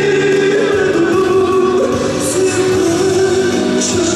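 A male pop singer singing a slow melody in long held notes over backing music, in a live concert recording.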